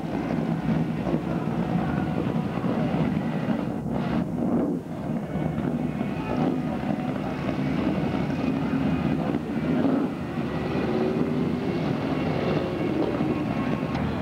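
Hot rods and street cars cruising past at low speed, their engines and exhausts running together in a steady low rumble.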